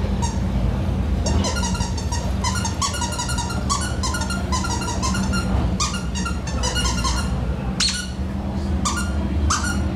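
French bulldog puppy yipping and yapping in play, short high-pitched calls coming several times a second, over a steady low hum.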